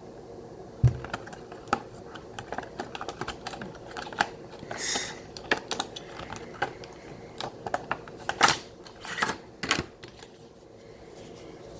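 A phone case and its packaging being handled, giving scattered light clicks and taps. There is a short rustle about five seconds in and a few sharper clicks a couple of seconds before the end.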